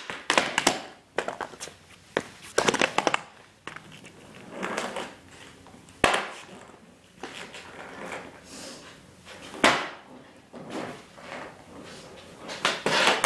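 Plastic penny board clattering on a concrete floor during flip-trick attempts: repeated sharp clacks and thuds as the board and feet land, several bunched in the first three seconds, with stretches of wheels rolling in between.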